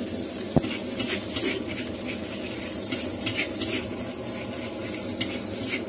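Fried rice sizzling in a steel wok while a metal spatula scrapes and tosses it, with a sharp clink about half a second in.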